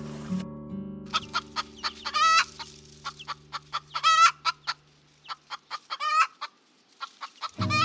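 Chicken clucking: a run of quick, short clucks broken by three longer, wavering calls. Background music fades out at the start and comes back in near the end.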